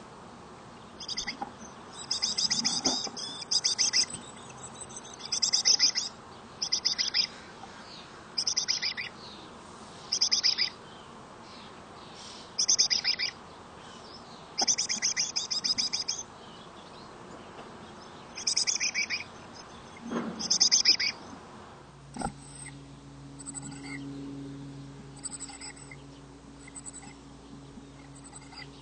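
Black-capped chickadees calling: about a dozen short, buzzy, high-pitched bursts, one every second or two. About three quarters of the way through, the calls stop and a faint low hum takes over.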